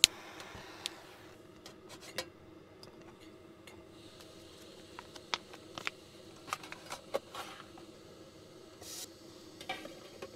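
A sharp click as a small isobutane camping stove is lit, then the burner's gas flame hisses steadily under a mess-tin cooker, with scattered light clicks and knocks from handling the stove and the tin's lid.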